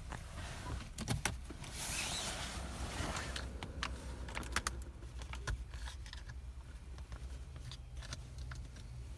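Mercedes-Benz W124 250D's five-cylinder diesel idling after a cold start, a low steady hum heard from inside the cabin, with scattered light clicks over it.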